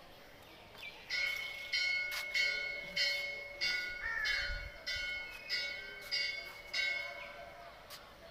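Hindu temple bell rung over and over, about ten strikes at a steady pace of roughly one every 0.6 s. Each strike rings on with a clear tone into the next. The ringing starts about a second in and stops shortly before the end.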